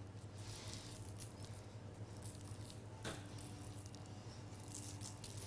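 Faint patter and rustle of ground black pepper being pinched from a small pot and sprinkled by hand onto puff pastry twists, over a low steady hum. One small click about three seconds in.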